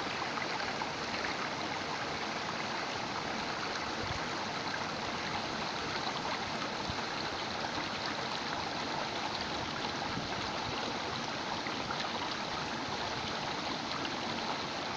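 Waterfall water rushing steadily, an even hiss-like roar with no change throughout.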